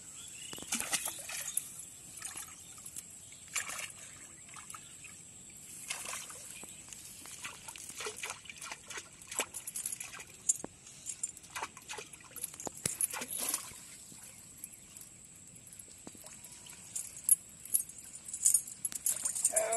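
Iron chain clinking and water splashing and trickling as the chain is lowered into and worked around in a small pond hole, in irregular small bursts.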